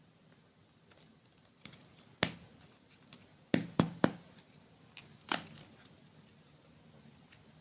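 Sharp taps and clicks from hands handling clay and slime materials and their containers: a handful of separate knocks, three of them close together about halfway through.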